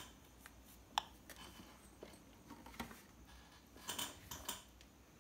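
Faint handling of a plastic bulb camera: a sharp click about a second in, a few lighter clicks, then a cluster of clicks and rattles near the end as the camera is fitted into its bulb holder.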